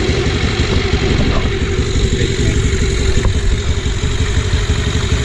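Honda Dio 2021 scooter's 110 cc single-cylinder four-stroke engine idling steadily, with a fast even pulse from the exhaust.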